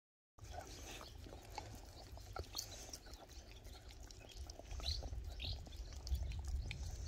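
Birds chirping a few times over a low rumble, with small wet clicks from a dog licking a rubber Kong toy held in a hand. The sound starts abruptly less than half a second in.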